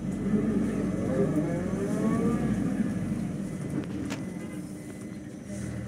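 City bus engine heard from inside the cabin, revving as the bus pulls forward, with a whine that rises in pitch. A single sharp click comes about four seconds in.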